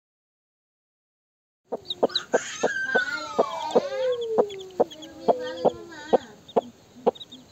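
Country hen clucking to her chicks in a run of short clucks, about three a second at first and slowing near the end, with higher chick peeps over them and one long call that falls steadily in pitch in the middle. Silent for the first couple of seconds.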